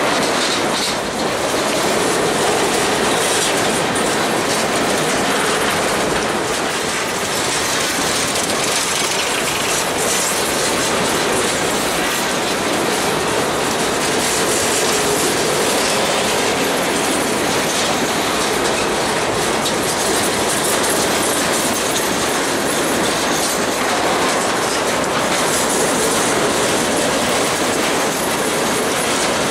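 Freight train rolling past at close range, its empty centerbeam lumber flatcars and boxcars making a steady, loud noise of wheels on rail.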